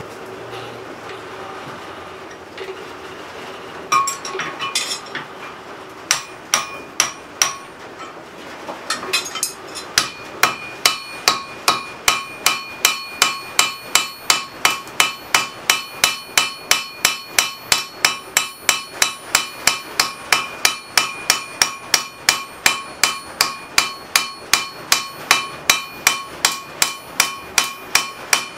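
Hand hammer striking a hot railroad-spike tomahawk head on an anvil. A few scattered blows come about four seconds in, then from about nine seconds an even run of quick blows, two to three a second, each with a bright ring. These are light planishing blows on cooling metal, truing the piece up rather than moving much metal.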